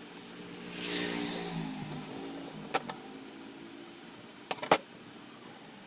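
A motor vehicle passing by, its engine note swelling and then falling in pitch as it goes. A few sharp clicks follow: a pair a little under three seconds in and a louder pair near the end.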